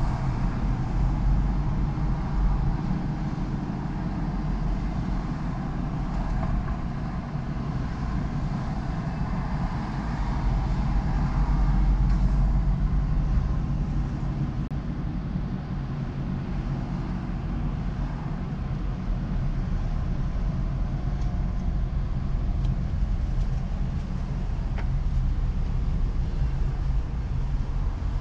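Steady low rumble of a car driving on city streets: road and engine noise, growing a little louder for a few seconds near the middle.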